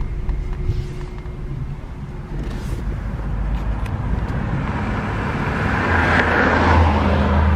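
A motor vehicle's engine hum and tyre or road rush, growing louder through the second half and loudest near the end.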